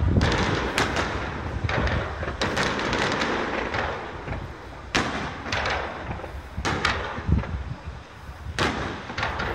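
Aerial firework shells bursting in a series of sharp bangs, about one a second.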